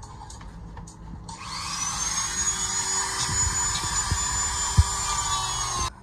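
A small corded electric power tool switched on about a second in, its motor spinning up to a steady high whine with a rushing hiss, with a few light knocks as it works, then cutting off abruptly near the end.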